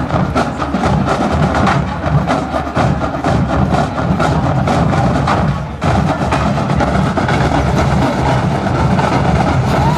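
Massed marching bands playing together, with drums and percussion striking a quick, dense rhythm; the sound dips briefly a little before the middle and then carries on.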